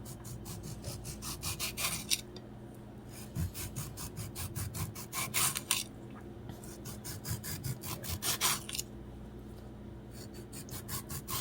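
A knife scraping over a tomato's skin to peel it, in quick, rhythmic strokes several times a second, coming in runs of about two seconds with short pauses between.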